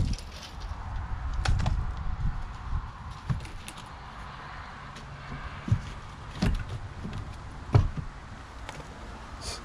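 Soft rustling as fiberglass insulation is pushed into a hole in a wooden cabin wall. Then the cut-out pieces of board siding are fitted back over it, with several scattered wooden knocks and taps, the loudest late on.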